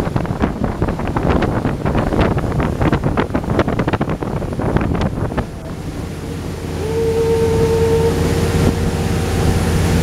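Boat engine running steadily, with wind buffeting the microphone, heaviest in the first half. About seven seconds in, a horn sounds once, a steady tone held for just over a second.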